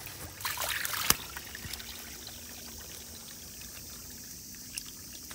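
Water trickling and pouring through a rice paddy's underdrain pipe as it is opened to drain the field for midseason drying. A rustle of handling and one sharp knock come about a second in, then a steady trickle.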